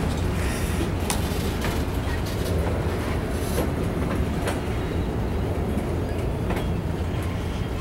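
Freight cars of a mixed freight train rolling past close by: a steady low rumble of steel wheels on rail, broken by occasional sharp clicks and clacks from the wheels.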